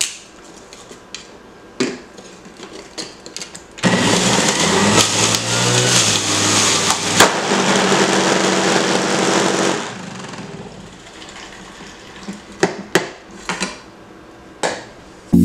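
Centrifugal juicer running as celery stalks are pushed down its feed chute, loud for several seconds in the middle with a low hum. About seven seconds in, a sharp pop comes as the motor blows out and the hum stops. The noise dies away a couple of seconds later, leaving scattered knocks.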